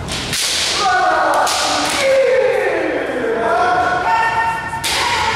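Kendo sparring: players give long shouted kiai, one call falling steadily in pitch and another held near the end. Over the shouts come several sharp cracks of bamboo shinai striking armour, and thuds of stamping feet.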